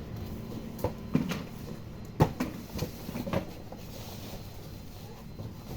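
Objects being handled: a series of scattered light knocks and clicks, the sharpest about two seconds in, over a low steady background noise.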